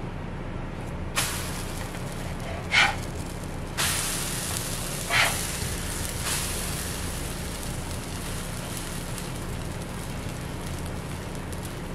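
Pancake batter sizzling on a hot electric griddle while a nylon spatula scrapes under the pancakes and flips them: about five short scrapes and slaps in the first six seconds or so, the sizzle brighter once the pancakes are turned.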